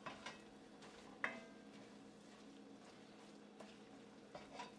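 Wooden spoon stirring risotto in an enamelled cast-iron pot, knocking against the pot's side several times; the sharpest knock, about a second in, rings briefly. A faint steady hum lies underneath.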